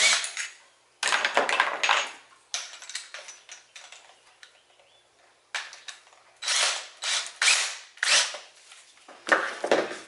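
Bit change on a DeWalt cordless drill: the keyless chuck ratcheting and clicking as it is loosened and tightened, with clacks of the bits and hole saw being handled. It comes in several bursts of clicking, about a second in, mid-way and near the end, with scattered small clicks between.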